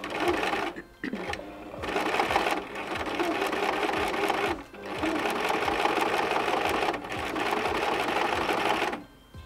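Electric sewing machine running at speed, stitching through fabric in long runs. It pauses briefly about a second in, again near the middle and around seven seconds, and stops just before the end.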